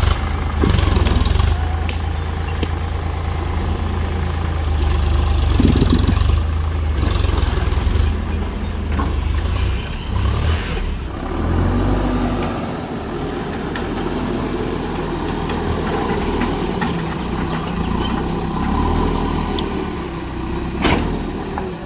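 Heavy-machinery diesel engine running; its deep low hum fades about halfway through, leaving a lighter engine note, and a single sharp knock sounds near the end.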